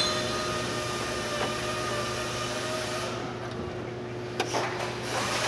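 A steady mechanical hum, with a couple of faint clicks from hands working at wiring connectors in an engine bay.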